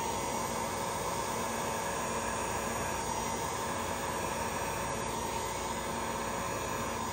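Handheld electric heat gun running steadily, its fan blowing a constant stream of hot air with a faint hum in it. It is being played over wet epoxy resin to bring out cells and lacing in the white.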